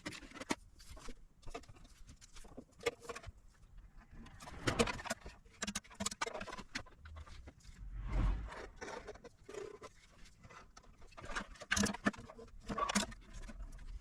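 Irregular clicks, knocks and scrapes of hand work on an electronic unit's casing, with tools and screws being handled as the case is opened.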